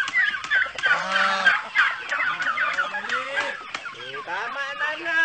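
A mixed flock of turkeys and chickens calling over one another, many short calls overlapping without a break, as the birds crowd around at feeding time.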